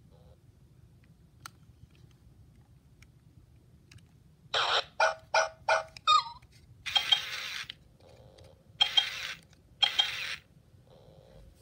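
Hasbro i-Dog robot toy's speaker playing electronic dog sound effects: four short yips in quick succession, a brief wavering pitched sound, then one longer sound and two shorter ones about a second apart.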